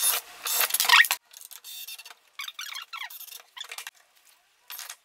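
Cordless drill whirring in short bursts as it bores pilot holes through a hinge leaf into a timber door jamb. It is loudest in the first second, then gives way to quieter squeaks and scrapes.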